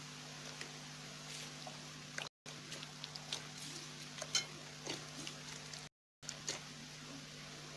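Slime being squeezed and poked, giving faint wet squelches and small crackles over a steady low electrical hum. The sound cuts out completely for a moment twice.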